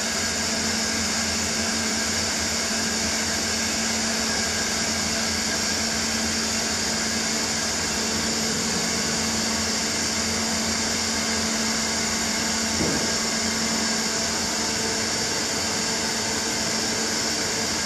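Dahlih horizontal CNC machining centre running a thread-milling cycle: a steady mechanical hum with one constant low tone and a hiss over it.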